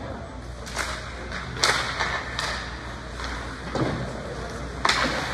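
About four sharp knocks and slaps, spread a second or so apart, over a steady low rumble.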